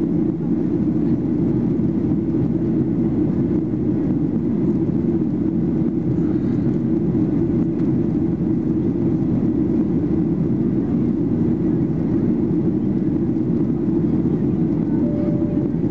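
Steady cabin drone of a Boeing 737-800 in flight, heard from inside the cabin: its CFM56-7B engines and the airflow past the fuselage making an even, deep rumble.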